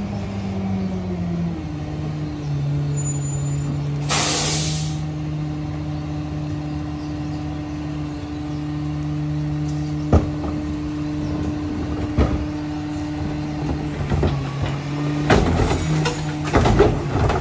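Garbage truck engine slowing, then idling steadily, with a loud air-brake hiss about four seconds in. Near the end come clanks and bangs as a plastic wheeled trash cart is rolled up and tipped into the Pac Tech rear loader's hopper.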